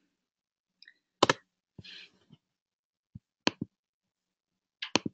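Sharp computer clicks in three small clusters a second or two apart, with a faint rustle between the first two. They come as the presenter moves through her slides.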